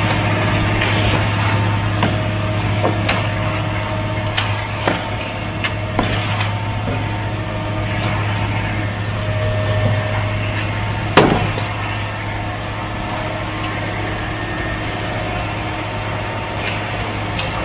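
Ready-mix concrete truck's engine running steadily while it pours, with scattered sharp knocks and scrapes of rakes and shovels working the wet concrete; the loudest knock comes about eleven seconds in.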